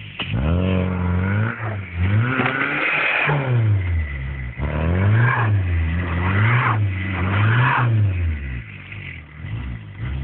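Fiat Uno 1.5 diesel engine revving up and down over and over as the car is driven sliding through snow, the revs swinging quickly several times in the middle and dropping off briefly near the end before rising again.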